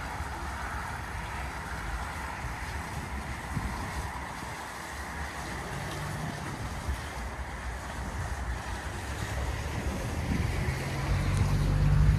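Steady outdoor background noise with wind on the microphone and a low rumble that grows louder near the end.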